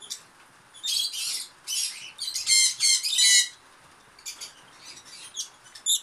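Violet masked lovebird giving a rapid series of high-pitched, harsh chirps and squawks while held in the hand and having its chest feathers plucked. The calls are loudest in the first half and come fainter and more scattered near the end.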